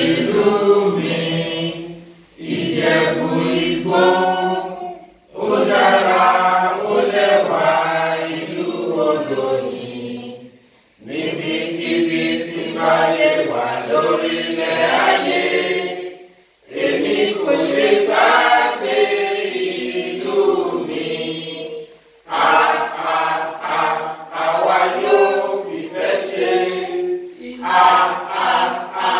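A group of men, women and children singing an anthem together without accompaniment. They sing in phrases of a few seconds, with short pauses for breath between them.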